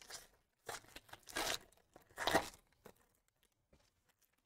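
Foil wrapper of a 2022 Bowman Jumbo baseball card pack torn open by hand in three quick rips, the last the loudest, then the loose foil crinkling faintly.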